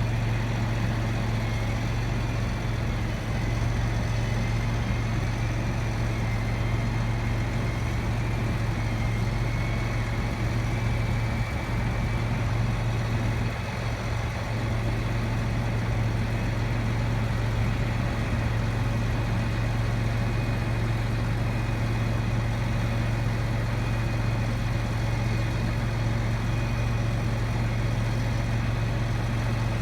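Heavy engine of the machine working a mole plough, running steadily at an even pace. A faint high whine wavers in pitch during roughly the first dozen seconds.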